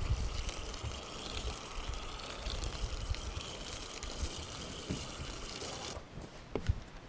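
Water spraying steadily from a hose-fed foam cannon, laying a soapy mix onto a boat hull at fairly low pressure. The spray cuts off about six seconds in, followed by a couple of light knocks.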